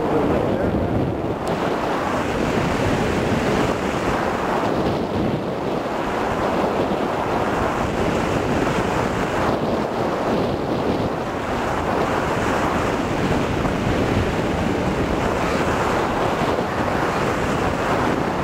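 Steady rush of airflow buffeting the microphone of a camcorder taped to a hang glider's control bar, driven by the glider's airspeed in flight.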